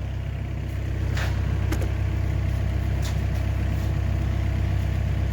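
Komatsu PC50 mini excavator's diesel engine running steadily with a low hum, getting a little louder about a second in.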